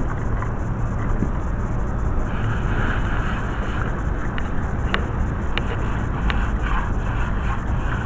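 Steady low outdoor rumble with a few sharp taps in the second half.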